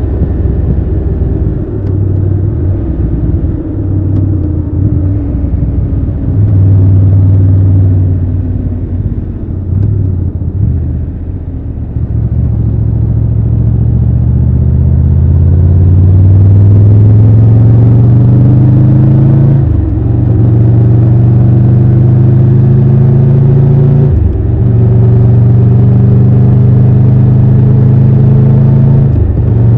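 Triumph Tiger 1200 Rally Pro's inline three-cylinder engine, ridden at low, uneven revs at first and then pulling hard with the pitch rising. It dips briefly at upshifts twice in the second half and once more near the end.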